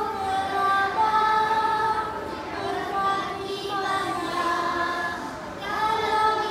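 A small group of young children singing a song together, holding notes through a microphone.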